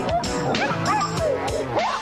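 Instrumental break of an upbeat rock song with a steady drum beat, and short yelping dog-like calls over it that rise and fall in pitch.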